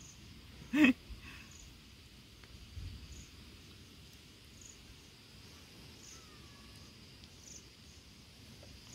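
Insects trilling steadily in the background, with a faint high chirp repeating about every second and a half. A brief voice sound about a second in is the loudest moment.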